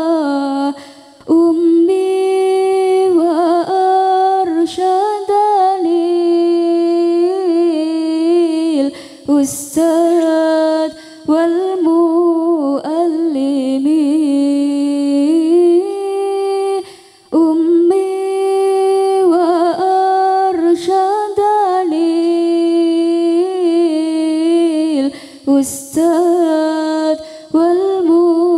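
A solo voice singing an unaccompanied, slow, ornamented melody, with long held, wavering notes and short pauses for breath.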